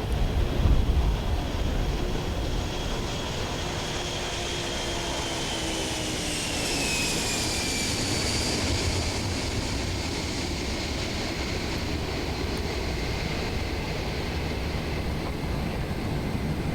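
The Boeing 747 Shuttle Carrier Aircraft's four jet engines at takeoff power, a steady low rumble. A high whine falls in pitch about six to eight seconds in as the aircraft passes.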